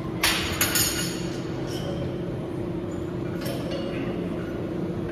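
Metal gym weights clinking: two sharp clinks in the first second and a fainter one past the middle, over a steady low hum.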